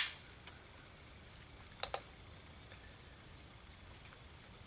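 A sharp double click about two seconds in, from a Glock 17 pistol's trigger being pulled against a trigger pull gauge to measure its weight. Under it runs a faint steady hiss with a quiet high ticking about three times a second.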